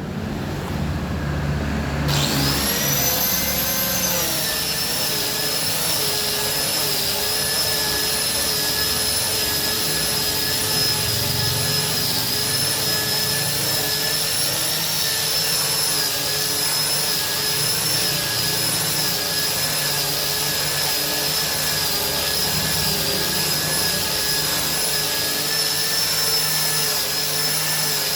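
Hand angle grinder with a sanding disc starting up about two seconds in, its whine rising quickly to full speed, then running steadily while sanding a solid wood chair seat.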